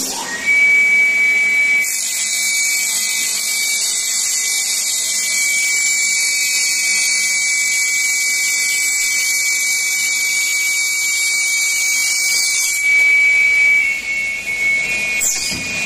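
CNC busbar processing machine running with a steady high-pitched whine. A loud hissing rush sits over the whine from about two seconds in and cuts off about three seconds before the end. A few short falling squeals follow near the end.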